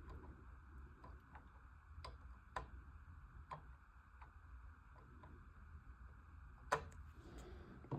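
Light, scattered clicks and taps of small plastic model parts being handled and fitted, about a dozen irregular ones with the sharpest near seven seconds in. A faint low hum runs underneath.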